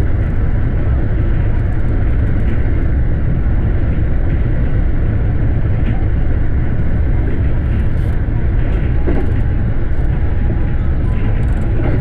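Steady running noise of a JR West Special Rapid (Shinkaisoku) electric train at speed, heard inside the front car: a continuous low rumble of wheels on rail and traction gear.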